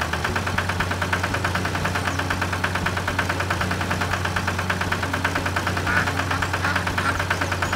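Tractor engine running with a fast, even chugging over a steady low hum.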